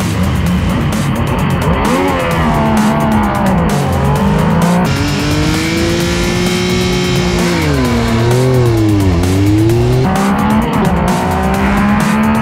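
Yamaha MT-09 and Tracer 9 GT three-cylinder engines accelerating hard at full throttle, heard onboard. The engine note climbs, then drops at each upshift, switching abruptly between the two bikes.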